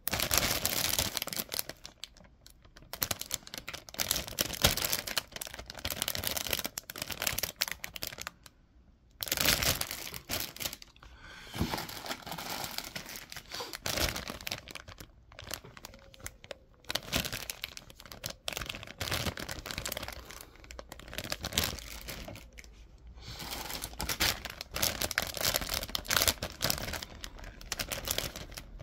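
Clear plastic bags around plastic model kit runners crinkling and rustling as they are handled, in irregular bursts with short pauses.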